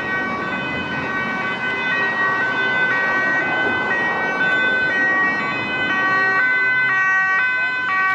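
Police two-tone siren, alternating between a high and a low pitch about every half second, over the running engines of passing trucks.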